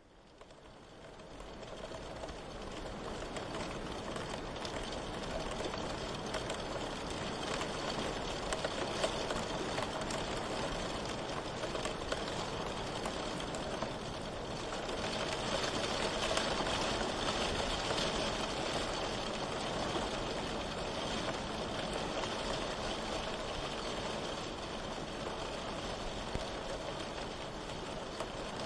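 Steady rain falling in a continuous hiss, fading in over the first couple of seconds and then holding level.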